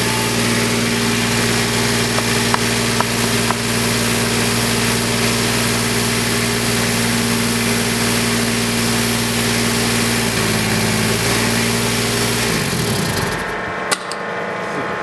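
Fire engine's pump and its engine running steadily with a rushing flow. About ten seconds in the pitch drops slightly, then near the end the engine winds down and the flow stops as the pump is shut off.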